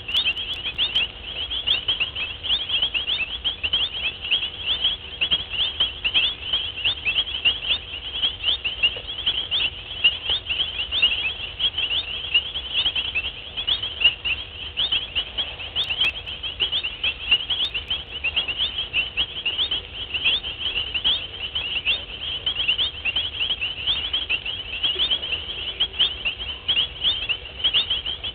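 Dense, unbroken night chorus of rapid high-pitched chirping from many small calling creatures at once, with no pause.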